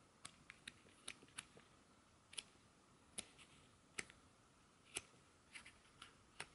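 Stiff sticker-sheet pages of a booklet being flipped over one after another, each turn a short faint flick. A few light ticks come first, then sharper flicks roughly once a second.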